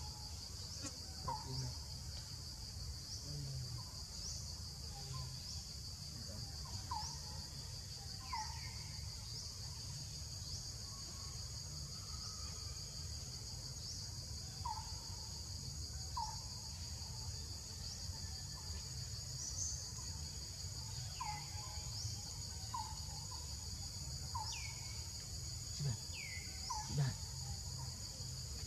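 Steady high-pitched insect trilling, with short chirping calls repeating every second or two and a few falling calls near the end.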